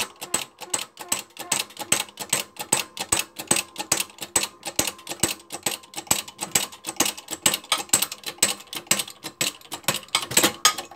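The hand pump of a 12-ton hydraulic shop press being worked fast, clicking and clacking several times a second as the press pushes a rust-tight drive sleeve bearing off its shaft.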